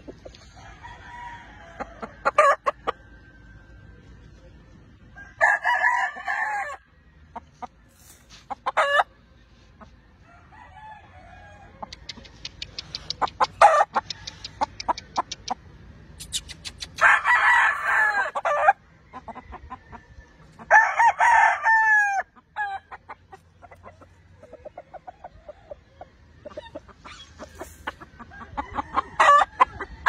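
Gamefowl roosters crowing three times, about five seconds in, around seventeen seconds in and again just after, the last crow trailing off in falling notes. Between the crows come quick runs of short clucks.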